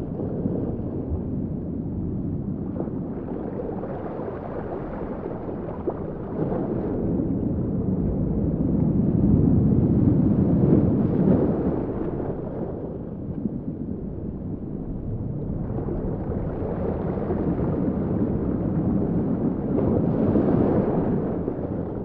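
Designed underwater sea ambience: a low, muffled rush of water that swells and fades slowly. It is loudest about halfway through and again near the end.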